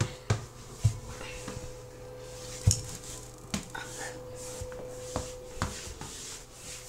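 Irregular light taps and knocks as a plastic baby doll is walked and bumped across a wooden floor, mixed with handling noise, over a faint steady hum.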